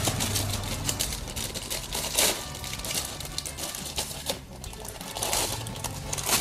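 Plastic wrapper crinkling and tearing as a new gold DID roller chain is unwrapped, with the chain's metal links clicking and rattling against each other. The crackling comes in irregular bursts, loudest about two seconds in and again about five seconds in.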